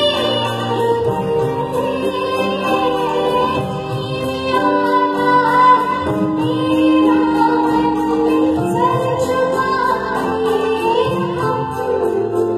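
A woman singing into a handheld microphone over instrumental accompaniment with a steady beat, holding long notes that bend and waver in pitch.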